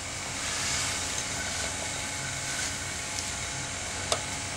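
Steady background hiss with a faint low hum, and a single small click about four seconds in as a hand handles the airsoft gun.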